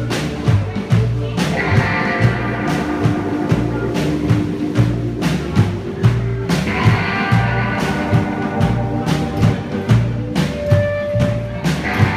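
A rockabilly trio playing live: a Gretsch hollow-body electric guitar, an upright double bass and a drum kit keep a steady driving beat in an instrumental passage.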